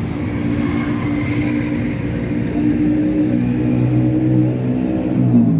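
A motor vehicle engine running loud and steady, its pitch dipping briefly near the end.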